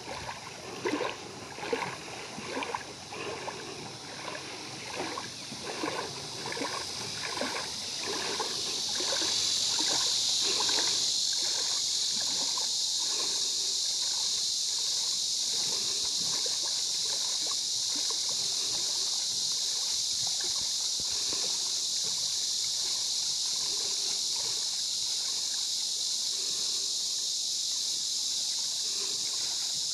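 Water splashing in a steady rhythm of about two strokes a second around a truck inner tube floating on a river. About eight seconds in the splashing fades, and a steady high hiss takes over.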